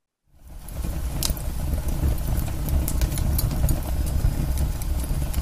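Recorded fireplace sound from an Ecotones Sound+Sleep machine: a fire crackling with sharp scattered pops over a low rumble, fading in just after the start.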